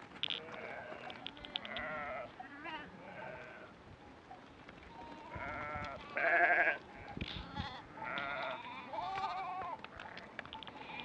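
A flock of sheep and lambs bleating, one call after another and sometimes overlapping, with wavering, quavering voices; the loudest call comes about six seconds in.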